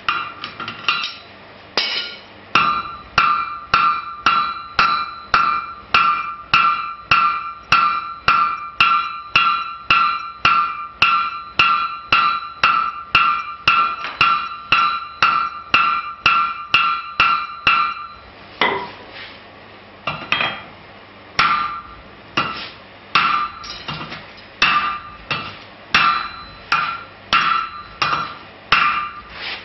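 Hammer blows on hot steel on a blacksmith's anvil while forging a nail header, each strike ringing with a clear metallic tone. The blows come steadily at about two a second, then pause about 18 seconds in and resume slower and less even.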